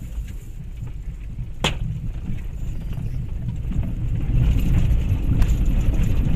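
Car driving, heard inside the cabin: a steady low engine and tyre rumble that grows louder past the middle as the car rolls onto a gravel lane. A single sharp click comes about a second and a half in.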